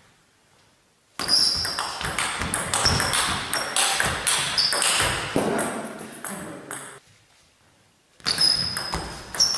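Table tennis ball being hit back and forth in a fast rally: a rapid run of sharp clicks of ball on bat and table, with hall echo. The rally starts about a second in, stops about seven seconds in, and a new one starts near the end.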